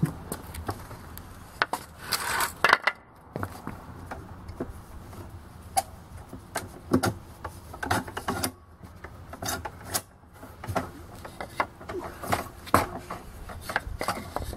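Small wooden blocks knocking and clattering as they are handled and stacked on pavement, with clunks and scrapes of a folding table's leg being set onto them. There is a short scrape about two seconds in, and irregular knocks follow throughout.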